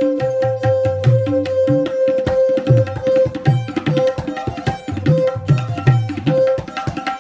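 Tabla pair played in a fast, steady rhythm, the bass drum's strokes bending upward in pitch, under a dilruba's bowed melody that holds long notes.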